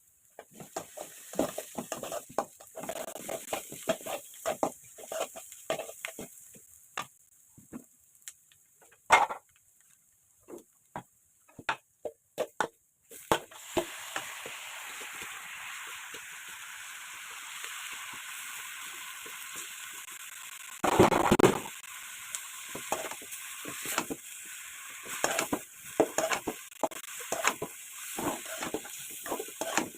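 Cooking utensils clinking and scraping in a pan, then food sizzling in hot oil that starts suddenly a little before halfway through, with stirring and scraping going on over the steady sizzle and one louder burst of sizzle.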